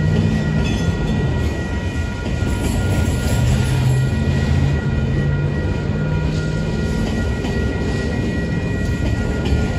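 Freight train's autorack cars rolling past: a steady rumble and clatter of steel wheels on the rails, with faint steady high-pitched tones over it.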